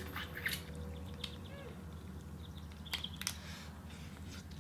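Faint scattered clicks and small cracks of lobster shell being picked apart and handled while eating, with a short faint squeak about a third of the way in, over a low steady hum.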